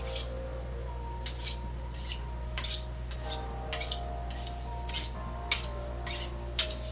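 A kitchen knife being honed on a sharpening steel: short metallic scraping strokes of the blade along the rod, about fifteen of them at an uneven pace of roughly two a second.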